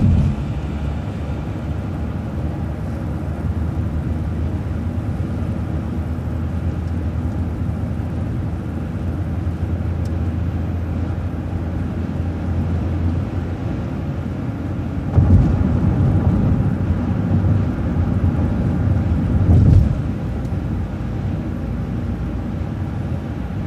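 City transit bus driving, its engine and road noise making a steady low rumble that grows louder and rougher for about five seconds around two-thirds of the way through.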